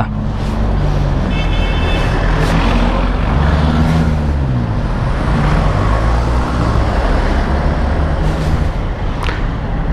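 Bajaj Rouser 200NS single-cylinder motorcycle engine running under way, its pitch rising and falling with the throttle, over wind and road rush and passing traffic.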